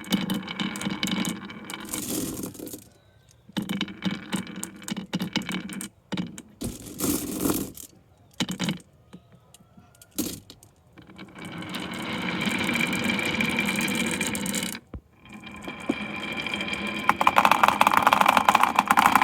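Marbles rolling and clattering down a HABA marble run, in several runs of a second or two each broken by sharp clicks. A longer, steady stretch of rolling in the second half grows louder near the end.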